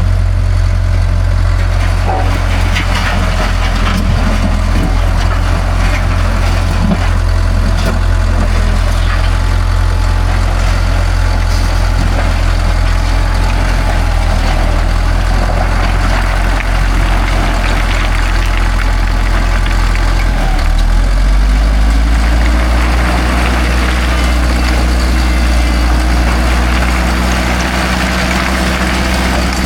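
Cat D4 bulldozer's diesel engine running steadily. About two-thirds of the way through its note changes, with a rising drone over the next few seconds as the engine speed shifts.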